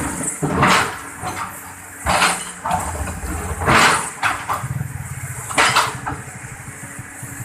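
Excavator engine running with a low, pulsing rumble, broken by short loud noisy bursts every second or two as it digs.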